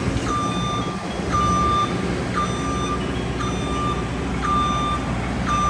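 Boom lift's motion alarm beeping about once a second, each beep a steady high tone about half a second long, sounding while the lift is moving. A steady low rumble runs underneath.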